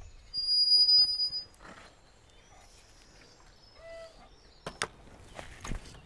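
Wooden field gate being opened and let swing shut: a high, steady squeak lasting about a second near the start, a shorter, lower creak about four seconds in, then several sharp knocks and footsteps.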